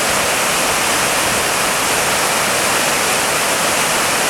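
Fast, snowmelt-swollen mountain river rushing over rocks: a loud, steady roar of whitewater.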